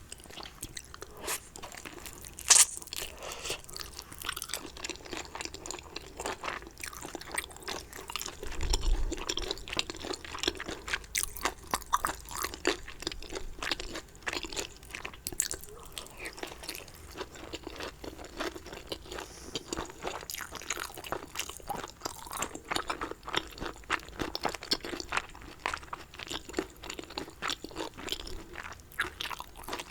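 Close-miked eating sounds of someone eating dumplings and tteokbokki: chewing with a steady run of wet mouth clicks and soft crunches. There is one sharp click about two and a half seconds in and a dull low bump around nine seconds.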